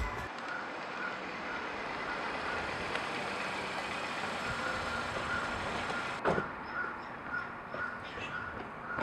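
Outdoor street ambience: a steady rushing background noise, broken about six seconds in by a single sharp knock, with faint short high chirps repeating about twice a second. Music cuts off right at the start.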